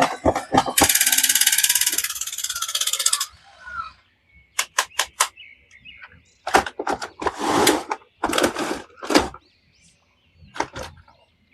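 Handling of toys and their packaging: a run of sharp clicks, a fast, even rattle lasting about two and a half seconds, then scattered clicks and short rustles.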